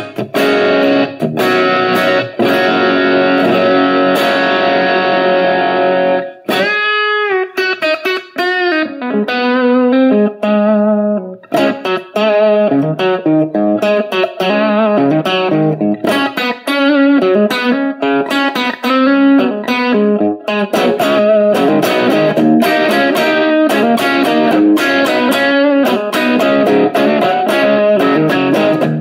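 Electric guitar played through a Valeton GP200 multi-effects processor and heard through a Cort CM15R amp. Held, repeatedly struck chords give way, about six seconds in, to notes bent in pitch and then a busy line of changing notes and chords.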